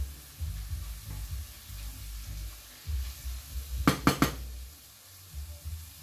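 Minced beef with onions and sweet peppers sizzling in a frying pan as it is stirred with a wooden spoon; about four seconds in, three quick knocks of the spoon against the pan.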